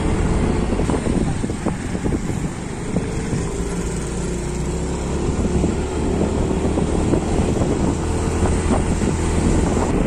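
Motorcycle engine running steadily under way, with wind rushing over the microphone.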